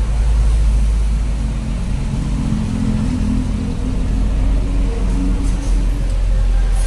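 Truck engine running steadily while driving, heard from inside the cab as a low drone. The engine note grows stronger through the middle.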